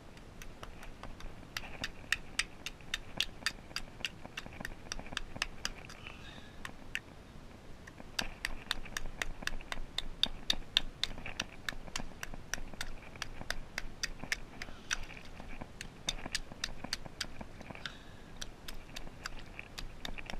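A rock chopping at oyster clusters on a concrete piling, breaking the shells loose: a long run of sharp, irregular clicks and knocks, several a second, coming in spells and busiest around the middle.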